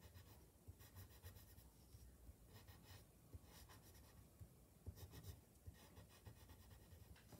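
Faint scratching of a black coloured pencil on paper as it is worked in short strokes around a drawn eye, in little runs with brief pauses between them.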